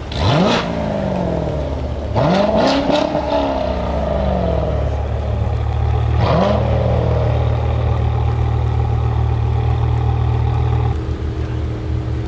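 BMW M5 E61 Touring's 5.0-litre V10, breathing through a KKS race exhaust, idling with a steady drone and revved in sharp blips. The first blip is at the start, then a burst of quick stabs about two seconds in that falls away slowly, then another blip about six seconds in. Near the end the sound changes to a quieter idle.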